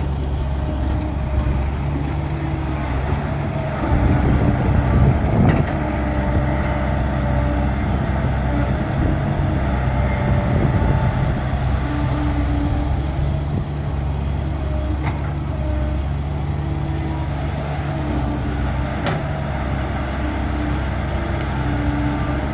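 Heavy diesel engines running steadily, with a louder rumbling stretch about four to six seconds in.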